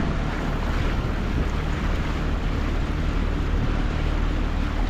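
Dinghy outboard motor running steadily, with wind noise on the microphone.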